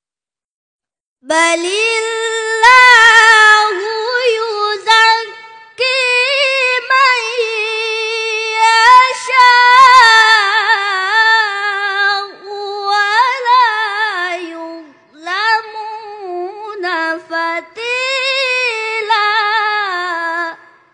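A boy's unbroken voice reciting the Quran in melodic tilawah style: long held notes with wavering ornaments. It starts about a second in and pauses briefly for breath twice.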